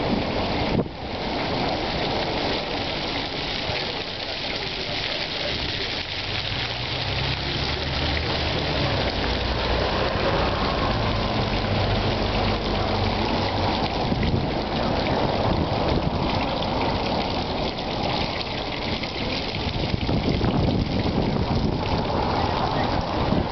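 Small fountain jets arcing into a shallow water channel, a steady splashing hiss of falling water. A low rumble runs under it for several seconds in the middle.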